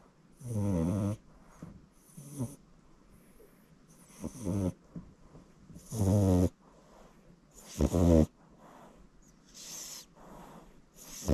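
French Bulldog puppy snoring in its sleep: a rough, buzzing snore with each breath, about every two seconds.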